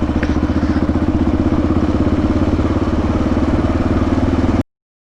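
Motorcycle engine running steadily with a fast, even pulsing beat. The sound cuts off abruptly near the end.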